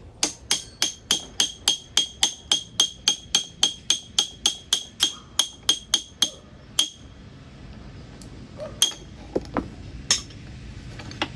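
Hammer tapping on metal about three times a second, some twenty ringing strikes in a row, then stopping, followed by a few single metallic clinks. The strikes are part of removing the piston from a Yamaha YZ400F four-stroke top end.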